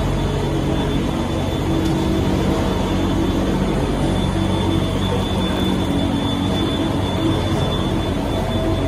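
Steady drone of a waste LDPE film washing and pelletizing line running: electric motors and machinery humming together, with a thin high whine over it.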